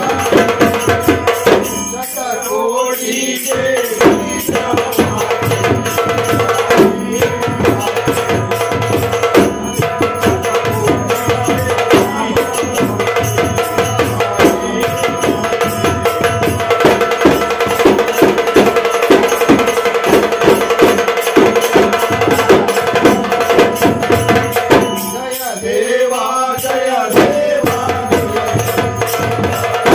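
Ghumat clay-pot drums played by hand in a fast, steady rhythm together with a drum beaten with two thin sticks, while men sing the arati.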